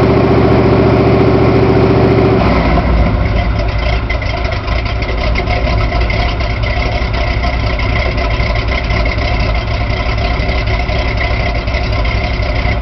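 Ford 460 big-block V8 of a 1978 Ford Bronco running at steady raised revs, then dropping about two and a half seconds in to a rough, uneven idle.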